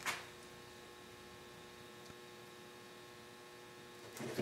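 Faint steady electrical hum, with a brief rustle of painter's tape being handled right at the start and another short handling noise near the end.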